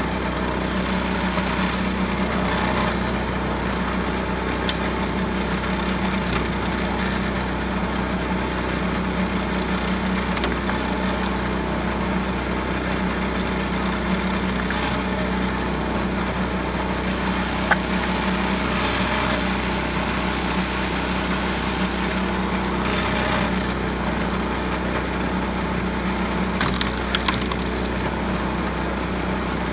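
Small engine running steadily on a pitman-arm firewood splitter while the wedge cracks and splinters wood rounds every few seconds.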